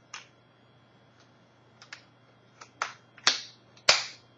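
Sharp plastic clicks of a memory card being put into a Canon 5D Mark II: the card slot door and the card clicking in, about eight small clicks, the two loudest near the end.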